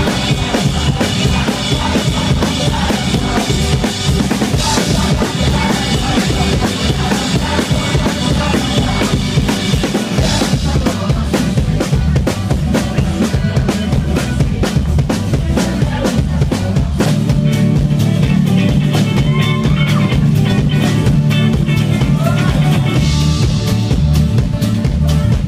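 Loud live band music: a drum kit keeps a dense, steady beat under strummed acoustic guitar.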